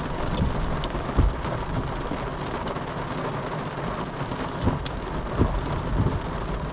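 Heavy rain mixed with small hailstones pelting a car, a dense steady hiss with scattered sharp ticks of stones striking and a few dull knocks.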